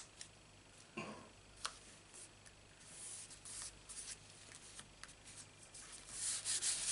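Hands pressing and rubbing a glued paper panel flat onto cardstock: soft papery rustling and swishing that grows louder near the end, after a sharp click at the very start and a few light taps.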